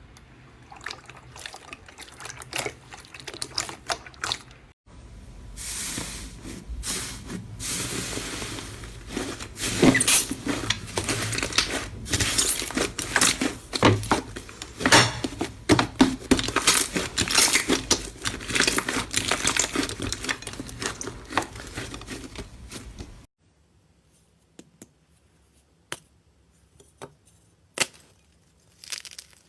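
Slime being squeezed and worked by hand: a dense run of sticky crackles and pops from about five seconds in, stopping abruptly near the end, with a few sparse clicks before and after.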